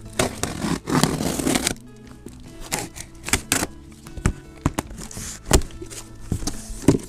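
Cardboard shipping box being opened: packing tape ripping for about a second and a half near the start, then cardboard scraping, rustling and knocking as the flaps are pulled open. Steady background music plays underneath.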